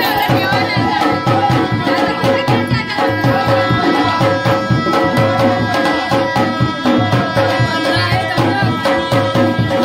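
Indian folk music with a hand drum beating a quick, even rhythm under steady held melodic tones.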